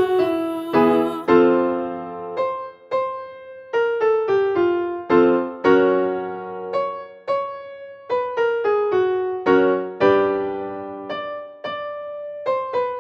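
Piano keyboard playing a vocal warm-up exercise pattern: single notes and chords struck about one or two a second, each dying away.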